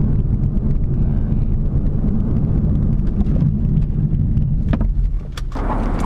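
Car driving at speed, heard from inside the cabin: a steady low rumble of engine and road noise. Near the end it gives way abruptly to a hissing wind noise on the microphone.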